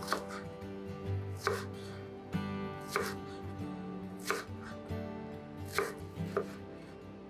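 White ceramic kitchen knife slicing a Japanese long onion on a wooden cutting board, each cut ending in a knock on the board. The single strokes come about one every second and a half, then quicker near the end, over soft background music.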